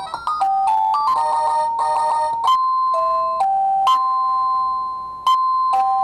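Secrui wireless doorbell chime receiver playing its electronic ringtone melodies as it is stepped through the tunes: a quick run of beeping notes for about two and a half seconds, then slower notes held about a second each, alternating between two pitches.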